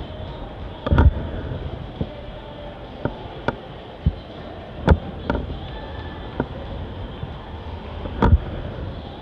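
Runners' footfalls on a rubberized indoor track: scattered sharp thumps and slaps at uneven intervals, the loudest about a second in and near the end, over steady background noise.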